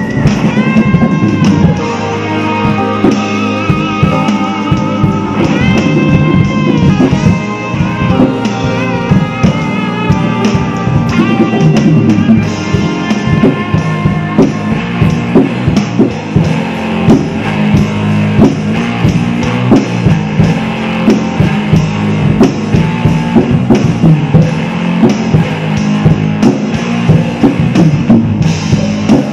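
Instrumental rock play-along track with a lead electric guitar and a drum kit played along to it. In the first several seconds the guitar bends and holds notes with a wavering vibrato, over busy drumming.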